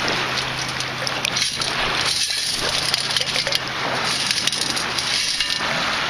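Sifting scoop of sand, shell and gravel being shaken and swished in shallow water, the shell and grit rattling and grinding against the scoop's mesh basket while water sloshes, in pulses about once a second.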